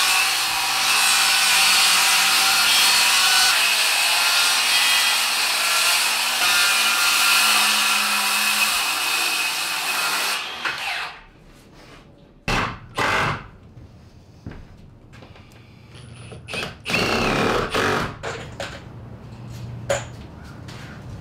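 Cordless circular saw cutting along a wooden board, a steady loud cut for about ten seconds that then winds down. Later come several short bursts of a power tool and a few knocks.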